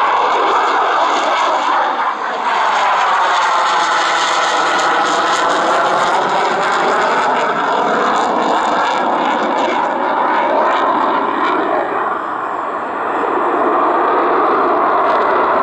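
Loud, continuous jet noise from a MiG-29M2 fighter's twin RD-33MK turbofan engines during a display flight. The noise sweeps up and down in pitch as the aircraft passes, with brief dips in loudness about 2 s in and again around 12 to 13 s.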